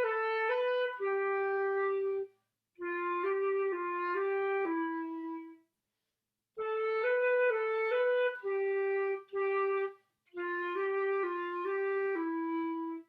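Solo flute playing a simple beginner melody in four short phrases with brief pauses between: A B A B G, then F G F G E, and the same two bars again.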